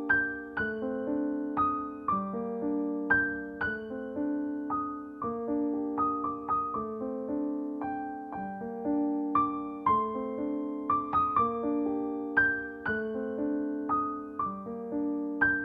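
Background piano music: a steady run of struck notes, each ringing and fading.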